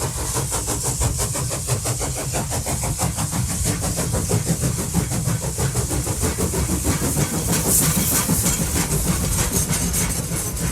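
Steam locomotive working hard, its exhaust chuffing in rapid, even beats over a steady hiss and low rumble.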